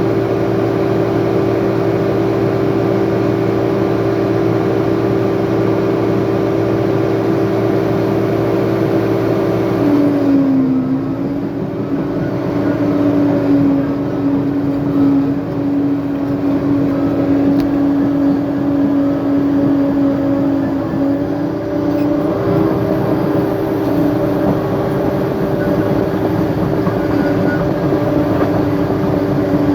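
Diesel engine of a heavy earthmoving machine running steadily under work. About ten seconds in its note shifts and drops briefly in loudness, and a little after twenty seconds it returns to the earlier note.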